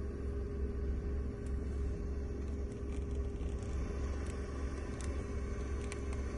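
Steady low rumble inside a car cabin, with a constant faint hum. A few faint clicks come as buttons on the Mercedes-Benz Audio 10 radio are pressed.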